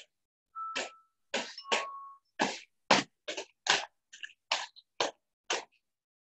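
Quad roller skates' wheels and toe stops striking and scraping a concrete floor in quick running footwork steps, about two a second. Each step is cut off sharply by a video call's noise gate, leaving silence between them.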